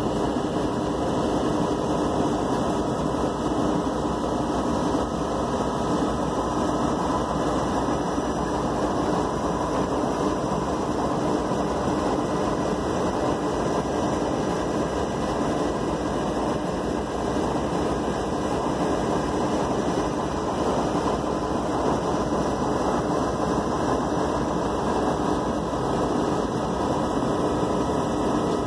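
Union Pacific and CP diesel-electric freight locomotives idling while the train stands stopped: a steady, unchanging engine drone with a faint hum running through it.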